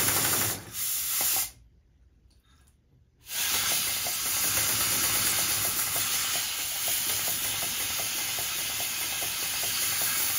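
Model steam locomotive chassis (Martin Evans 'Enterprise', an LNER V1/V3 tank engine) running on compressed air from a hand-held airline, as a bench test of its newly made piston valve and rings. Two short bursts of hissing, a brief pause, then a steady hissing run with faint quick exhaust beats.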